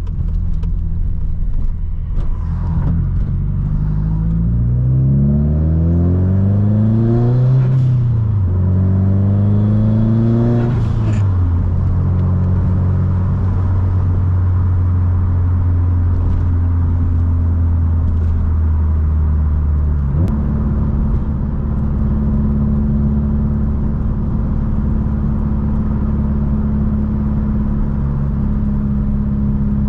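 Subaru WRX STI's turbocharged flat-four engine and exhaust under acceleration: the engine note climbs in pitch, drops at an upshift, climbs again through the next gear, then settles into a steady cruise.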